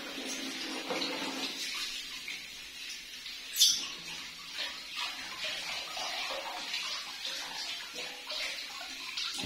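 Water from a running tap pouring over a baby monkey and splashing into a plastic bathtub, with a steady hiss and irregular splashes. A brief shrill sound cuts through about three and a half seconds in.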